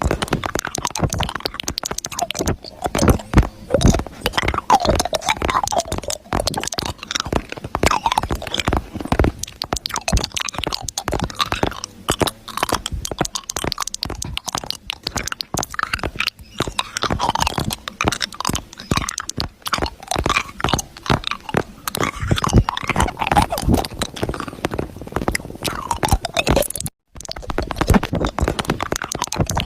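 Slime being squished and worked by hand, a dense run of wet crackles and pops that breaks off briefly near the end.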